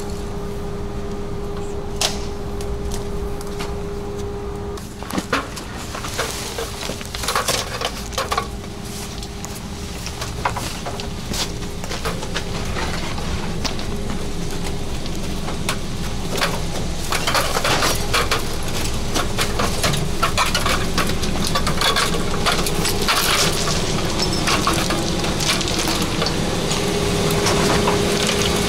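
Footsteps crunching on gravel with irregular clicks and knocks, growing louder in the second half. Underneath is a steady hum that fades about five seconds in and comes back near the end.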